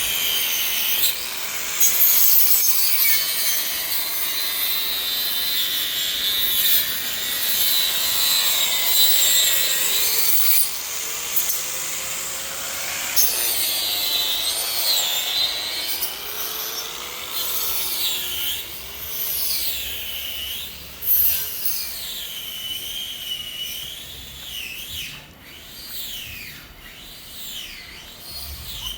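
Continuous scraping and rubbing of a hand tool working a hard surface during repair work, with squeaky tones that waver up and down in pitch. It grows quieter and more broken near the end.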